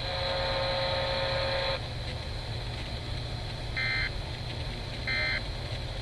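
A steady buzzing tone lasts about two seconds and cuts off sharply. After a pause come two short, raspy data bursts about 1.3 seconds apart: the Emergency Alert System end-of-message data bursts, played through an FM radio's speaker over a low hum.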